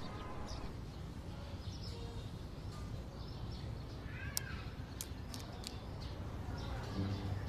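Quiet outdoor ambience: a steady low hum, with a short animal call about four seconds in and a few faint high chirps just after.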